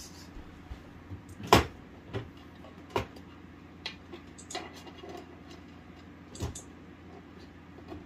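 Scattered clicks and knocks of things being handled, sharp and irregular, the loudest about a second and a half in.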